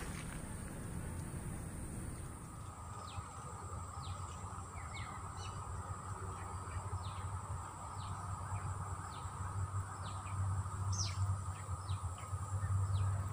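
Birds calling outdoors: a run of short, quickly falling chirps, roughly one a second, over a steady background hum.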